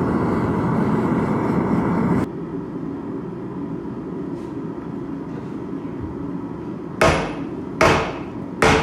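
A steady rush of noise that cuts off sharply about two seconds in, leaving a quieter steady hiss, most likely the propane forge burner. Near the end, three heavy hammer blows on steel ring out a little under a second apart, a forge-welding attempt on a billet made from a coil spring.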